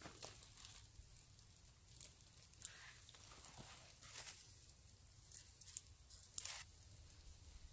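Faint, scattered crackles and rustles from a small wood cooking fire, with hands laying corn tortillas on the embers and handling a cloth; a few sharper crackles stand out, the loudest about six and a half seconds in.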